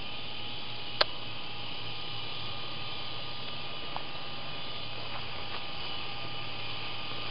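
Battery-powered RC helicopter's electric motor and rotors running, a steady hum with a constant whine. A single sharp click about a second in.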